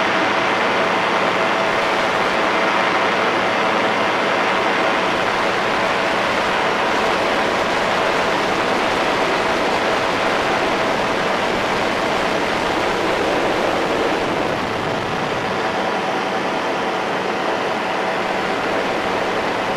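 Powered parachute's engine and propeller running steadily in cruise, heard from on board the aircraft. A rush of air noise is mixed with a low steady hum, easing off slightly about fourteen seconds in.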